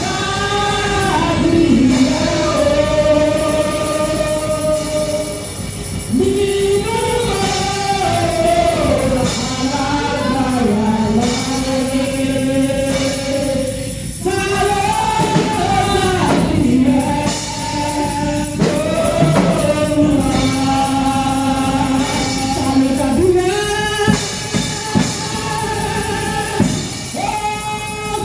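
Gospel praise singing, voices holding long notes over a band with drums.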